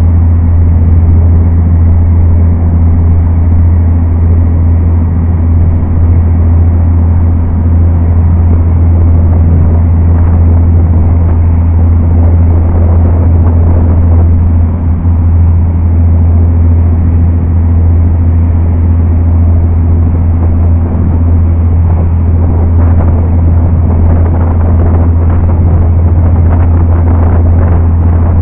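Passenger ferry's engines droning steadily, a loud deep hum with rushing noise over it.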